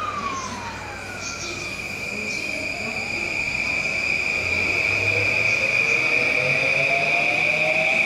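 Whine of an E235-series electric train's inverter motor drive. The pitch falls as a train slows, then rises again from a few seconds in as a train pulls away, over a steady high-pitched tone.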